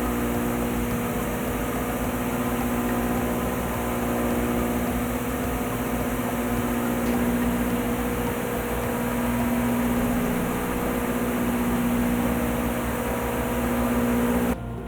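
Moak 16-inch jointer running steadily under power, its 5 hp motor and four-knife cutterhead making an even, pitched hum with a constant whir.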